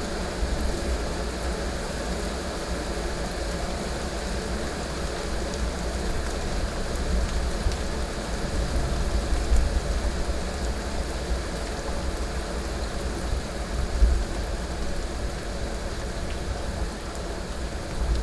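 Heavy rain falling steadily, with a low rumble of thunder underneath that swells slightly a couple of times.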